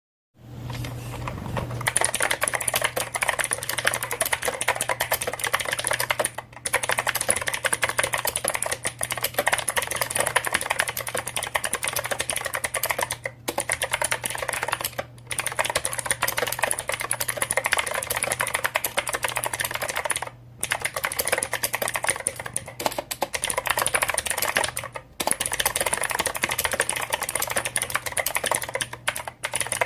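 Fast continuous typing on a mechanical keyboard with clicky blue-type switches, each keystroke a sharp click, broken by a few brief pauses. A steady low hum lies underneath.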